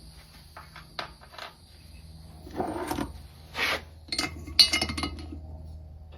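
Spark plugs and a Harley-Davidson Shovelhead cylinder head clinking and tapping as they are handled, with a cluster of ringing metallic clinks about four to five seconds in.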